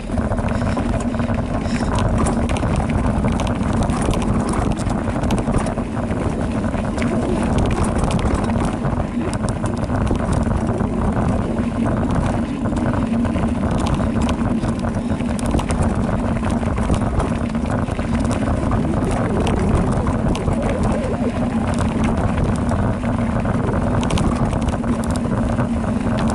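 Specialized Rockhopper Comp mountain bike descending a dirt trail: a steady rushing rumble of tyres and wind on the microphone, with a low hum throughout and scattered clicks and rattles from the bike over rough ground.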